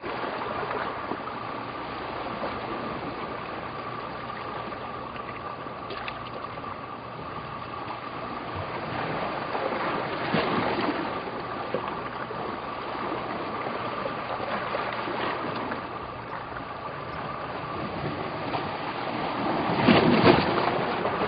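Outdoor ambient noise: a steady rush with a constant high drone, swelling briefly about ten seconds in and again near the end.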